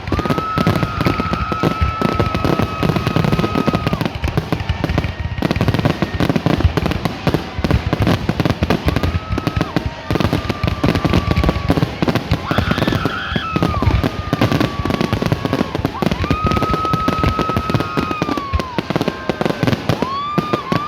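Many fireworks going off together: dense, rapid crackling and popping, with long steady whistles heard several times that bend down in pitch as they end.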